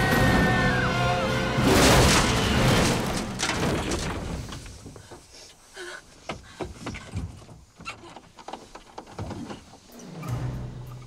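Horror film soundtrack: tense music at the start, then a loud crash about two seconds in that dies away over a few seconds, leaving quieter scattered ticks and taps; a low hum sets in near the end.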